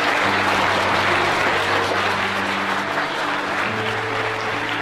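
An audience clapping in a strong round of applause, with steady held music notes underneath that change pitch about three-quarters of the way through.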